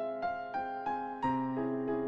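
Background music: a slow piano melody, single notes struck one after another, with a low note held under them from about halfway.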